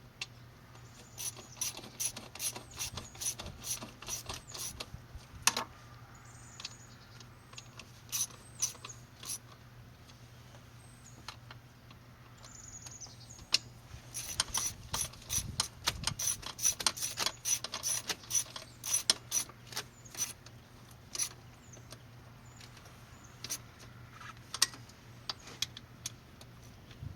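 Hand socket ratchet clicking in several bursts of quick clicks, the densest run in the middle, as bolts on a truck's throttle body are run down.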